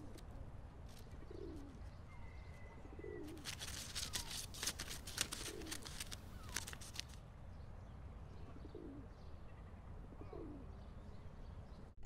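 Pigeons cooing, short low coos every second or two over a faint low rumble, with a quick run of sharp clicks in the middle.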